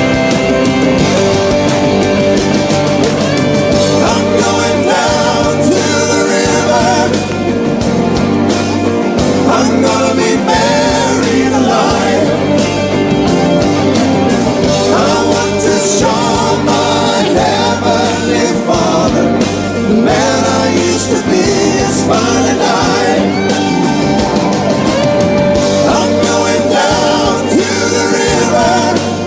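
Rock song with singing over a steady bass and drum beat.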